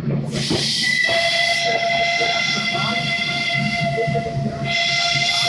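Borsig steam locomotive's whistle: a burst of steam hiss, then one long steady note from about a second in, over the rumble of the narrow-gauge train running.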